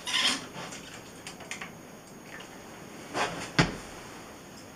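Handheld film squeegee drawn along a wet, hanging 35mm negative strip: short rubbing swishes, the first right at the start and another about three seconds in. A sharp knock just after the second swish is the loudest sound.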